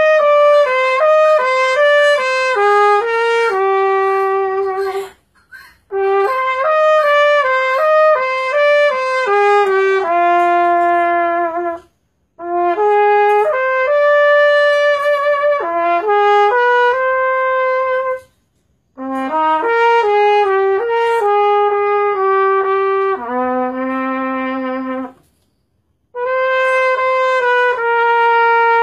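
Unaccompanied solo trumpet playing a slow melody in five phrases, each ending in a held note, with short near-silent breath pauses between them. The held notes carry a slight vibrato, and the fourth phrase ends on a long low note.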